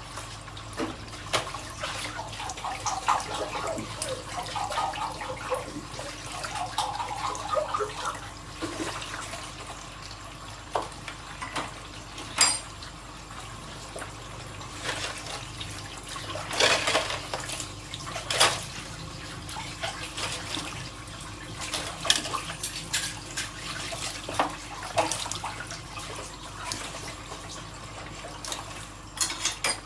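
Tap water running into a kitchen sink while dishes are washed, with dishes and cutlery clinking now and then, a few louder clanks in the middle. A few seconds in, a note rises in pitch for several seconds under the running water.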